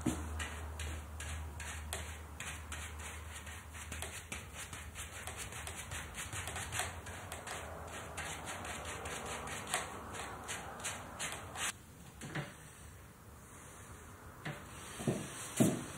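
Paintbrush dabbing and scrubbing paint onto a stretched canvas on an easel: quick, scratchy bristle strokes, a few a second, stopping about three-quarters of the way through.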